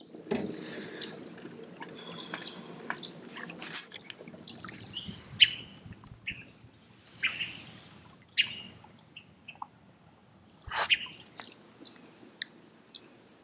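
Scattered short chirps and sharp clicks, with water dripping and lapping around a small boat. A steady low hum is heard through the first few seconds.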